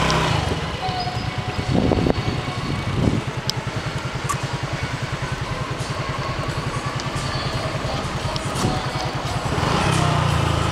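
Motorbike engine running steadily as it rides along, with a fast, even low throb.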